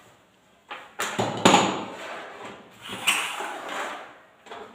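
Hard equipment units being moved and set down on a table: a series of knocks and clunks, the loudest about a second and a half in.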